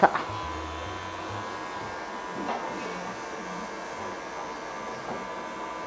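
Electric pet clippers running steadily with a 2 mm blade, shaving through a cat's dense matted coat.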